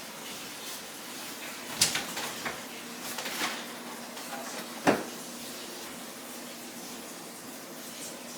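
Light knocks and clicks of things being handled on a kitchen counter, with one sharper knock about five seconds in, over a faint steady hum.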